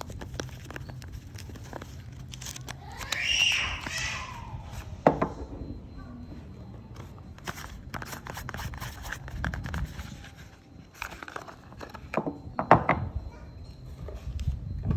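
Soap packaging crinkling and tearing, with many small taps and clicks of handling. A brief squeal about three seconds in.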